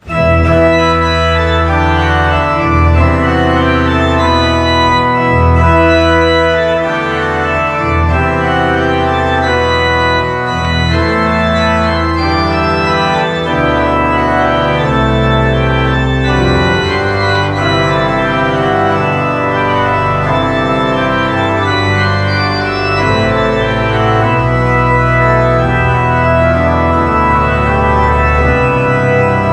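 Organ music: held chords that shift every second or so over low, sustained bass notes.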